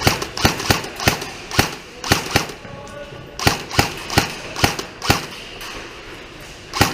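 Airsoft gun firing a string of single shots, sharp cracks coming a few a second in uneven runs, with a short pause partway through and one last shot near the end.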